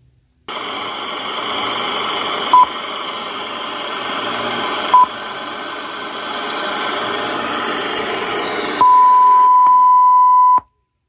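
Electronic beeps over a steady hiss, in the manner of a heart monitor: two short beeps about two and a half seconds apart, then one long unbroken tone of nearly two seconds. The tone and the hiss cut off together, suddenly.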